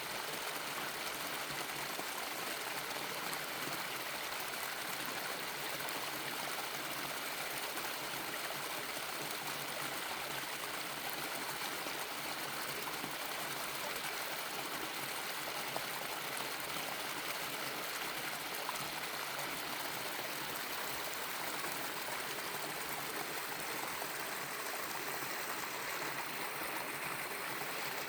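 Water of a small mountain valley waterfall and stream, running in a steady, unbroken rush.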